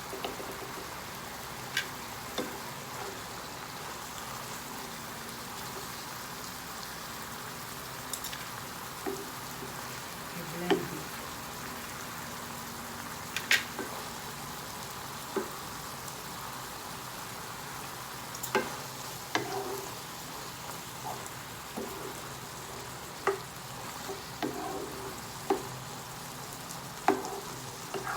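Food frying in oil in a pan, a steady sizzle, with scattered sharp clicks and knocks from a utensil stirring against the pan.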